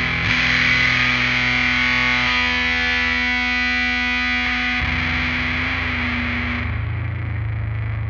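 The song's opening: a heavily distorted, effects-washed electric guitar holding droning chords in a shoegaze/post-punk style, with no drums. The low notes shift about five seconds in.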